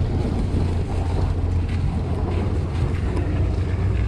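Wind rumbling steadily on the microphone over the low drone of the Jeep Grand Cherokee tow vehicle on the move.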